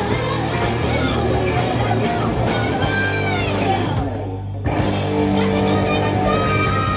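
Hard rock music with singing, electric guitar and drums, which drops out in the highs for about half a second around four seconds in before coming back in full.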